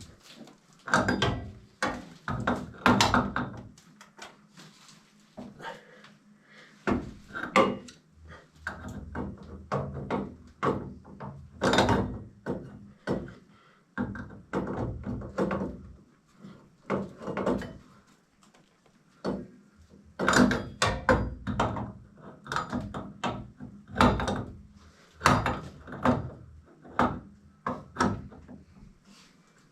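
Irregular knocks, clunks and scrapes of hard objects being handled and set down, in uneven clusters with short gaps, over a faint steady hum.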